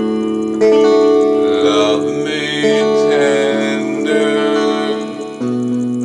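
Electric guitar chords, a fresh chord struck about every two seconds and left to ring, with a man singing over them in long wavering notes.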